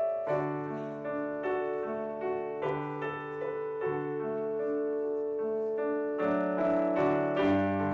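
Keyboard instrument playing slow chords with a melody on top, the chords changing about every second and a quarter over a low bass line.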